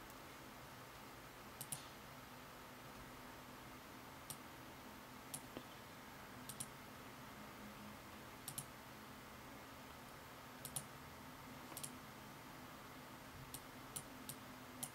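Computer mouse buttons clicking: a dozen or so sharp single clicks, several of them quick double clicks, over quiet room tone.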